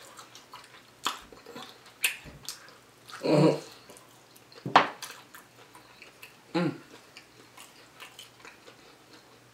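A person eating barbecued ribs up close: scattered wet lip smacks and finger-licking clicks, with two short 'mm' hums of enjoyment, about a third and two-thirds of the way in.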